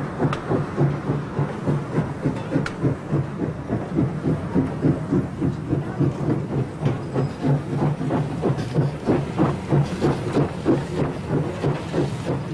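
SBB Eb 3/5 steam tank locomotive No. 5819 running past at speed, its steam exhaust beating steadily at about three beats a second with hiss and the clatter of its wheels and rods. Two sharp clicks stand out in the first three seconds.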